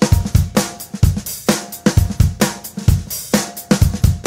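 Background music: a drum-heavy beat with a steady, driving rhythm of kick drum, snare and hi-hat.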